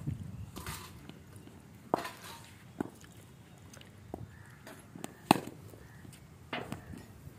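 Several sharp, isolated knocks from cricket net practice: hard leather cricket balls pitching on the turf and meeting the bat, the loudest a little past five seconds in.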